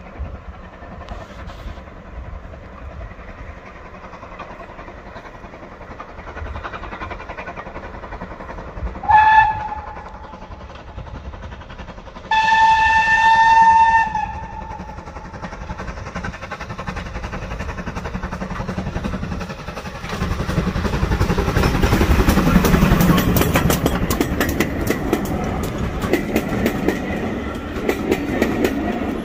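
Steam train approaching and passing close by. The locomotive whistles twice on one pitch, a short blast about nine seconds in and a longer one about three seconds later. It then comes nearer with a building rumble, and the coaches roll past with a steady clickety-clack of wheels over the rail joints.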